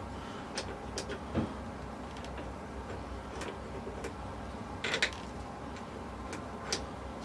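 Scattered light metallic clicks and clinks of overdrive gears and shift-rail parts being handled and fitted together, with one louder clack about five seconds in, over a low steady hum.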